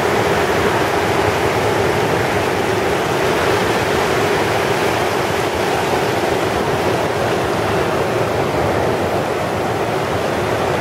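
Ocean surf washing in over the shallows and breaking close by: a steady, loud rush of water.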